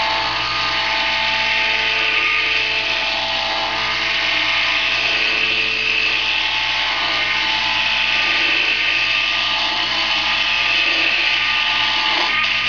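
Wood lathe running steadily, its motor giving a steady whine, while a hand works the spinning wooden popper lure blank, adding a rough hiss.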